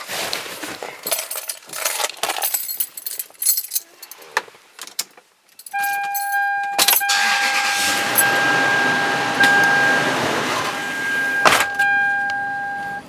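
Keys jangling and clicking, then a steady high electronic tone comes on about six seconds in, over a broad rushing noise. The tone is broken by a knock twice and cuts off suddenly near the end.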